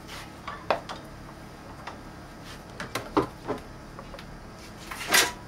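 Scattered knocks and clicks of tools and objects being moved and set down on a workbench, a few separate taps with the loudest near the end.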